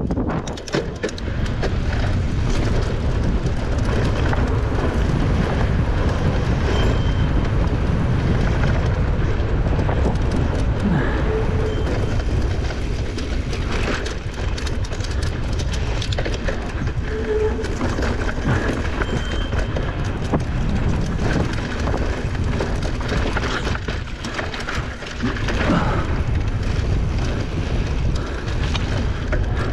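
Electric mountain bike ridden fast down a rough dirt trail: a constant rumble of knobby tyres and wind, with a dense clatter of the bike rattling over bumps and rocks.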